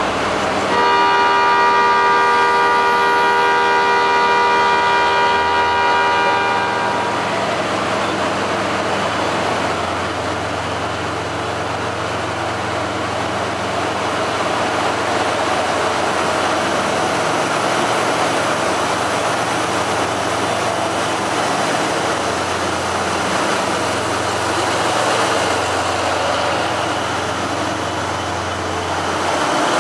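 Diesel-electric locomotive of the Seven Stars in Kyushu train (JR Kyushu DF200-7000) pulling slowly into the platform, its engine running with a low hum under the rumble of the wheels and cars. For about the first seven seconds a held chord of several steady tones sounds over it.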